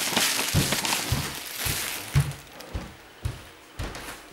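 Plastic garbage bags rustling while things are handled, with a run of dull thumps about twice a second; the rustling dies down after about two seconds.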